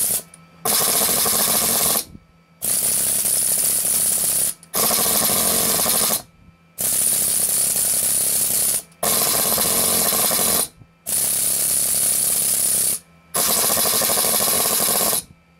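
Pneumatic air hammers triggered in seven bursts of about one and a half to two seconds, each a loud, dense hissing rattle with a steady high whistle, cutting off sharply between bursts. The bursts compare the noise of Apuren's low-recoil air hammer with that of a conventional air hammer.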